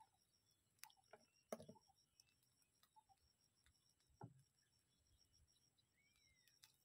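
Near silence, with a few faint knocks and clicks of plates and a plastic water bottle being handled while dishes are washed, and one faint chirp near the end.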